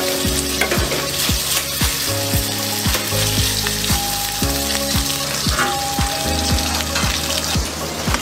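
Meat frying in hot oil in a wok: a steady, dense sizzle, with a ladle stirring in the pan. Background music with a steady beat plays under it.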